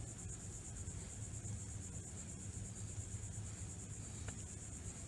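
Faint steady background: a high-pitched buzz and a low hum, with one faint tick about four seconds in.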